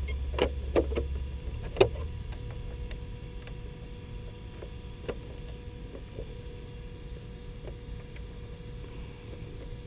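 A few sharp plastic clicks and taps as the RC truck's hard body shell is pressed and handled, the loudest about two seconds in, then scattered faint ticks over a faint steady tone.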